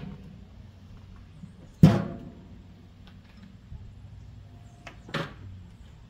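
Metal lid of a barrel grill being shut: one loud bang about two seconds in with a short ringing tail, and a softer knock a few seconds later.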